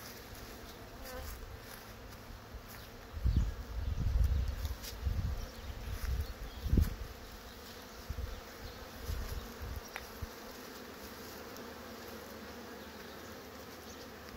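Honey bees buzzing around hive entrances, a steady hum, with louder low rumbling thumps between about three and nine seconds in.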